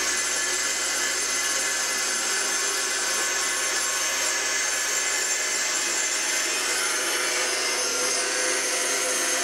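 Bandsaw running and cutting lengthwise through a wooden board: a steady, even sawing sound.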